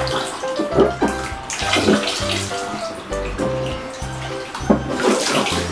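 Water splashing and sloshing in a shallow inflatable paddling pool as small children move about in it, with a few louder splashes about a second in, near two seconds and near the end. Background music with a steady bass line plays throughout.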